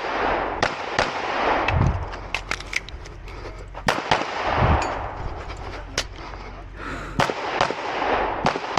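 A string of about a dozen 9mm pistol shots from a Glock 19, fired at uneven spacing with several quick pairs, as a stage is shot.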